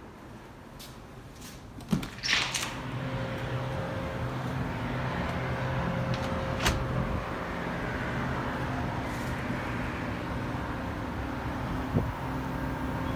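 Samsung inverter mini-split heat pump starting up: a couple of sharp clicks about two seconds in, then a steady running hum with several low tones that holds for the rest of the time, with an occasional single tick.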